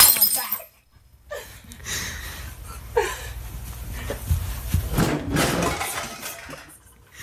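Scuffling and thumps of a play fight on the floor: a child wrestling a large stuffed sock monkey, with a few short vocal sounds.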